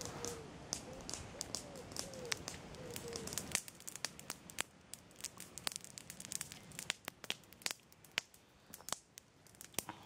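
Rustling as a cloth pipe bag is handled. From about three and a half seconds in, a small bonfire crackles with sharp, irregular pops.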